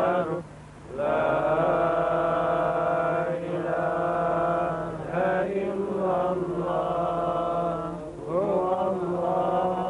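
A man's voice chanting Quran recitation in long, drawn-out melodic notes, with short pauses for breath about half a second in and again near eight seconds.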